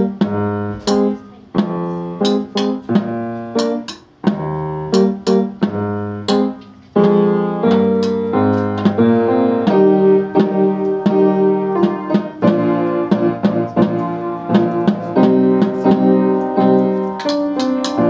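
A solo tune played on a keyboard instrument as a steady run of struck notes, with a brief pause about four seconds in. From about seven seconds in the notes become fuller and ring on into each other.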